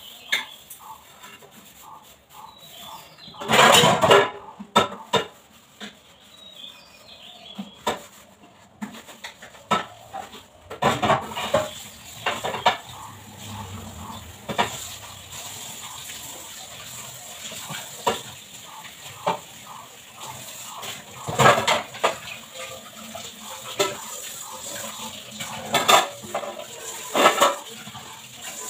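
Steel dishes and utensils clattering and knocking together in a kitchen sink as they are washed by hand, with water running from the tap through the second half.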